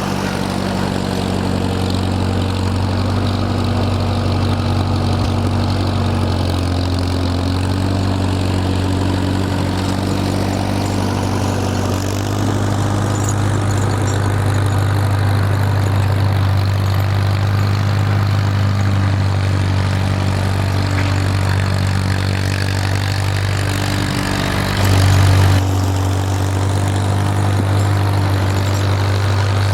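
Farmall M tractor's four-cylinder engine running steadily, its pitch shifting slightly now and then, with a brief louder surge near the end.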